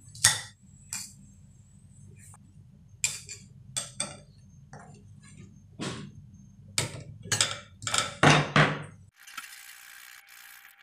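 Kitchen dishes and utensils clinking and knocking on a work surface, about a dozen sharp, irregular strikes. Near the end they give way to a short, even hiss lasting about two seconds.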